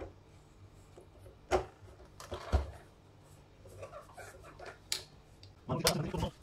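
Plastic clicks and knocks as a replacement lamp module is pressed and seated into an Epson projector's lamp bay: a few separate sharp clicks, then a short cluster of handling knocks near the end.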